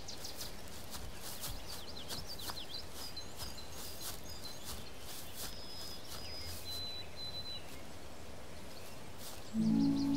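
Woodland ambience: many small birds chirping and twittering in short high calls over a steady hush of the woods. Music with sustained low chords comes in near the end.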